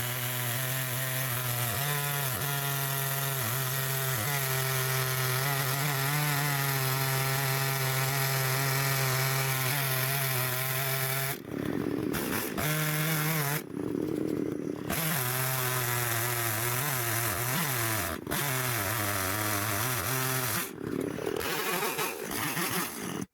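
Two-stroke chainsaw engine running steadily at high revs while cutting through wood, briefly easing off a few times about halfway through and again near the end.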